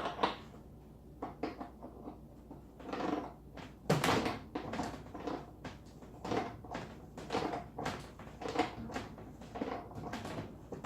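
Pliers gripping and turning a threaded, Teflon-taped hose fitting to snug it down: a run of short scraping clicks and knocks, about one a second.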